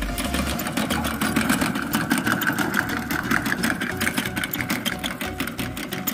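Hand-pushed rotary maize planter rolling over the soil, its spiked wheel and seed-metering mechanism rattling in a fast, even clicking.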